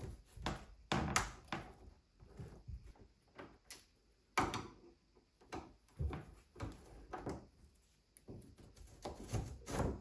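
Screwdriver backing the screws out of a door latch faceplate on the edge of a door: irregular clicks, scrapes and knocks of the metal tool on the screws and plate.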